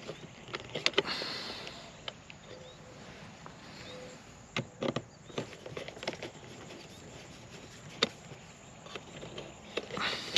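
A screwdriver clicks and scrapes against the metal weatherproof cover of an outdoor receptacle as its screws are backed out, giving a few scattered sharp metallic clicks. Near the end a quick cluster of clicks and rattles comes as the metal cover is pulled off.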